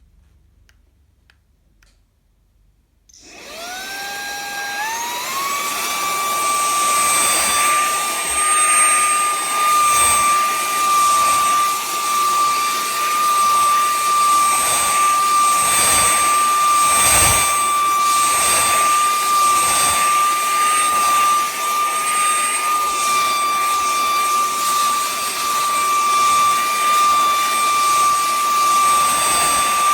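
A cordless handheld vacuum cleaner is switched on about three seconds in. Its motor whine rises in steps to a steady high pitch and then runs on with rushing air, swelling briefly now and then.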